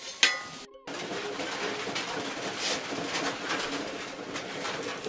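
Oil sizzling and crackling as dough pieces deep-fry in a metal wok, with a sharp metallic click of the spatula against the pan just after the start. A bird calls repeatedly over the frying.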